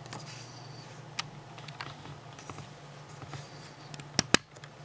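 Quiet room with a faint steady low hum and a few small sharp clicks of handling, one about a second in and two close together near the end.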